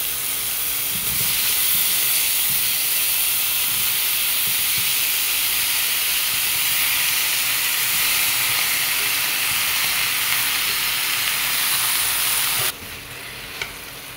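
Salted, sugared cucumber pieces frying in hot oil in a pan: a steady hissing sizzle. The sizzle drops off sharply about a second and a half before the end.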